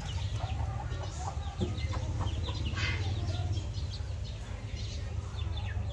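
Chickens clucking in the background, with one louder call about three seconds in, over a steady low hum.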